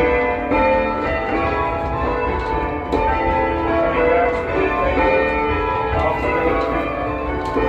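Church bells ringing: several bells of different pitches struck one after another in quick succession, their tones overlapping as they ring on.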